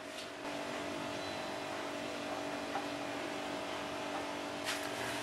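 A steady hum of a few held tones, with a couple of faint soft knocks as the cake layer is handled.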